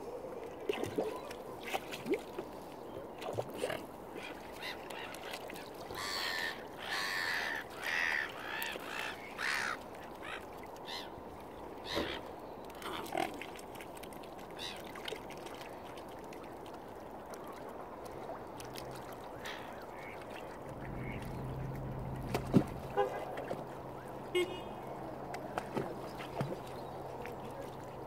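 Waterfowl calling in short bursts, clustered in the first half, over a steady hiss. A low, steady hum joins in about three-quarters of the way through.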